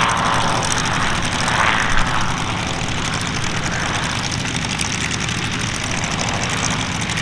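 Calidus autogyro's Rotax 914 four-cylinder engine and pusher propeller droning steadily in flight, swelling briefly about two seconds in and then easing off a little.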